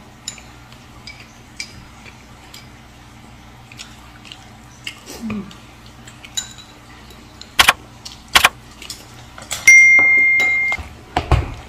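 Chopsticks and glass tableware clinking and tapping lightly, with scattered small clicks. Past the middle come two sharp clicks and then a steady bell-like ding lasting about a second: the sound effects of a subscribe-button animation.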